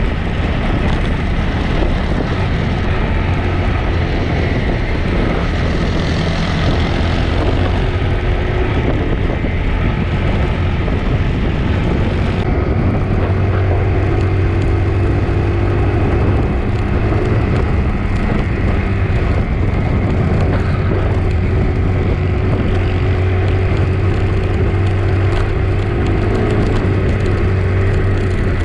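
Motorcycle engine running steadily at cruising speed, a constant low drone with wind and road hiss over it. The upper hiss drops away abruptly about twelve seconds in.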